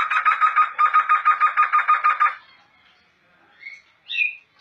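Black laughingthrush (poksay hitam) singing a fast run of evenly repeated notes, which stops about two and a half seconds in; a couple of short, faint notes follow near the end.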